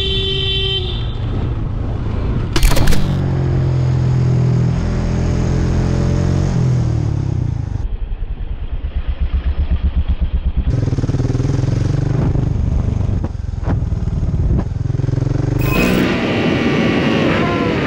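Motorcycle engines running and changing pitch, with road and wind noise, cutting abruptly between several riders' clips. There is a brief loud burst about three seconds in, and a stretch of rapid even throbbing from one engine about eight seconds in.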